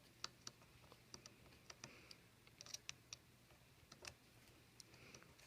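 Faint, irregular small clicks and ticks of a precision screwdriver and metal parts as tiny screws are tightened inside an iPhone 5S.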